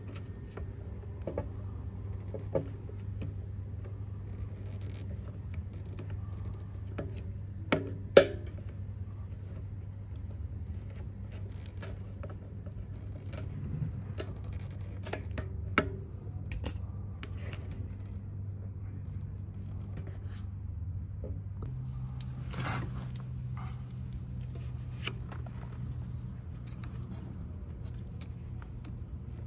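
Scattered metal clicks and short scrapes of pliers gripping and working a hose clamp on a hose under a motorcycle fuel tank, with the sharpest click about eight seconds in. A steady low hum lies underneath.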